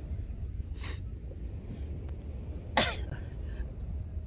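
A man exhaling hard with the effort of push-ups: a short breath just under a second in, then a loud grunting exhale that falls steeply in pitch near three seconds in. A steady low rumble runs underneath.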